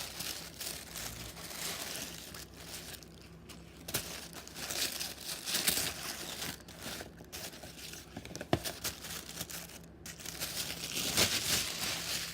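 Packaging being handled and unwrapped: irregular crinkling and rustling with a few sharp clicks, louder about five seconds in and again near the end.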